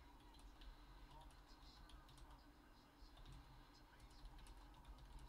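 Faint, irregular tapping of a computer keyboard being typed on, over a steady low room hum.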